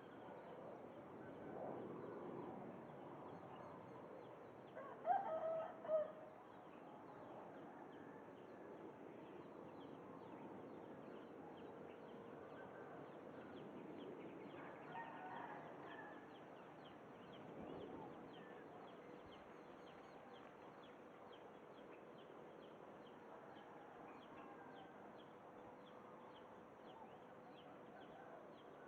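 A rooster crowing faintly in the background, loudest about five seconds in, with weaker calls later.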